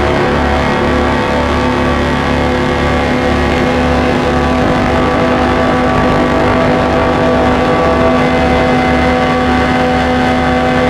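Colossus Audio "The Hum" drone instrument sounding a dense, dark drone of many held tones, with a low throb pulsing about twice a second underneath, under added reverb.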